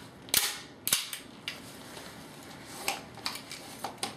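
TSD SD92 green gas airsoft pistol being handled: a series of sharp metallic clicks and clacks, the loudest two in the first second.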